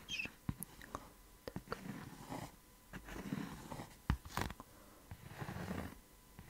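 Close-miked fingertips tapping and scratching on a textured red object: scattered sharp clicks with a few soft rustling passages in between.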